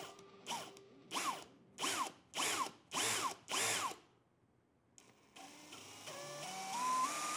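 WORX WU377 cordless hammer drill motor blipped on its variable-speed trigger about six times in quick succession, each burst spinning up and winding down. After a brief pause, the trigger is squeezed in small increments so the motor whine climbs in distinct steps, like a do-re-mi scale, showing how finely the trigger controls speed.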